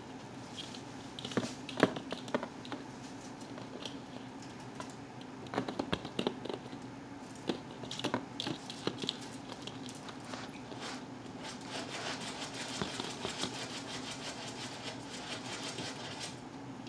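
Hollow plastic ball-pit balls clicking and knocking together in irregular bursts as a ferret burrows and tunnels through them in a plastic tub. A denser, steady rustle of shifting balls follows from about halfway to near the end.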